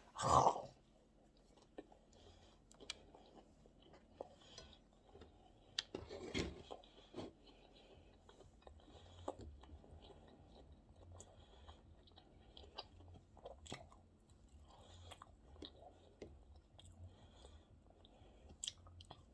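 A person chewing food close to the microphone, with quiet scattered mouth clicks. There is a short, louder mouth sound right at the start and a smaller one about six seconds in.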